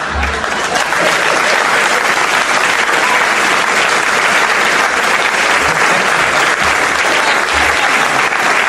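Audience applauding steadily after a comedy sketch.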